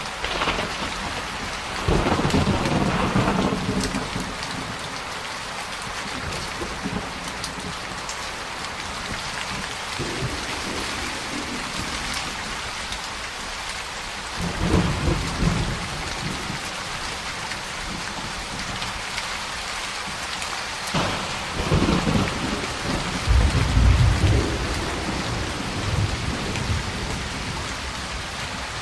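Steady rain falling, with thunder rolling in several times: about two seconds in, near the middle, and twice in the last third, the last the loudest.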